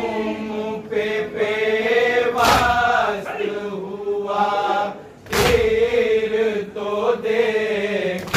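Men chanting a nauha, a Shia Muharram lament, with a lead voice held in long drawn-out lines, while the crowd strikes their chests together in matam about every three seconds, loud sharp slaps over the singing.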